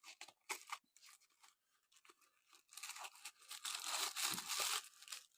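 A Matchbox toy car's box being torn open by hand. Scattered crackles and clicks at first, then a longer stretch of tearing and crinkling packaging in the second half.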